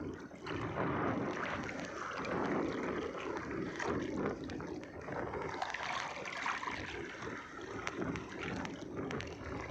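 Wind on the microphone and sea water splashing and trickling around a small fishing boat, a steady noisy wash with a few faint clicks.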